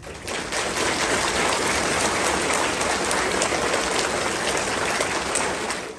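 Audience applauding, a steady dense clapping that stops suddenly at the end.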